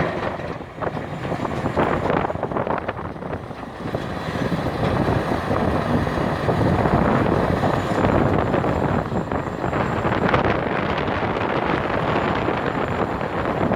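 Heavy diesel earthmoving machinery running hard as a Hitachi 470 excavator loads a dump truck, a dense steady noise with brief dips about a second and three and a half seconds in. Wind buffets the microphone.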